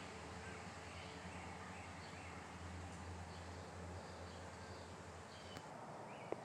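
Faint outdoor ambience: a steady low hum that drops away near the end, under a run of soft, short, high chirps, with one sharp click shortly before the end.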